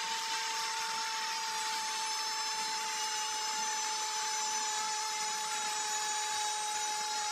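A football commentator's long held goal cry, "gooool", sustained on one steady note that sags slightly in pitch, over stadium crowd noise.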